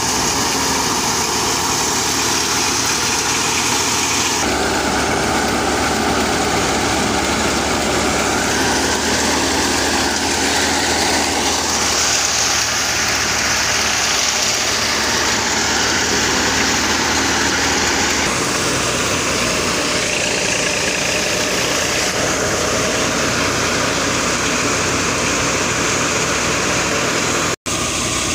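Tractor-driven threshing machine running steadily under load, threshing mustard, with the tractor's engine humming under the machine's noise. The tone shifts a couple of times and there is a very brief dropout near the end.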